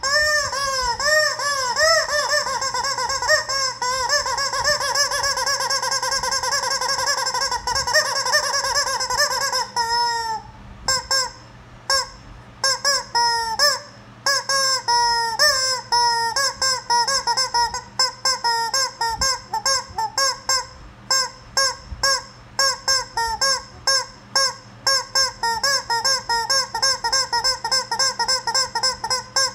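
Rubber chicken squeeze toy squawking again and again as it is squeezed, each squeeze a honking, wheezy squawk. The squawks come quickly at first, break up into fewer, choppier ones about a third of the way through, then run on as a fast, even string of short squawks about three a second.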